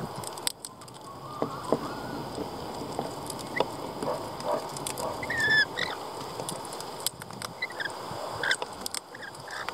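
Rainbow lorikeets feeding from a wooden seed tray: irregular clicks and taps of beaks picking through peanuts and seeds on the board, with a few short high bird chirps, the clearest about five seconds in.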